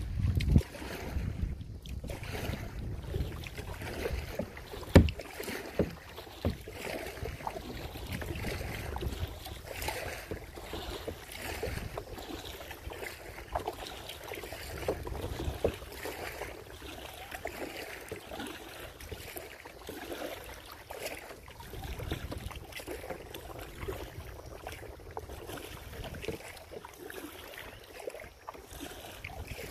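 Water splashing and lapping against a kayak as it is paddled, with wind buffeting the microphone. There are scattered small clicks and splashes, and a sharp knock about five seconds in.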